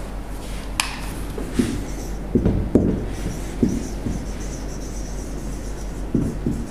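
Felt-tip marker writing on a whiteboard: a sharp click, then a series of soft knocks as the marker strokes and taps against the board, over a steady low electrical hum.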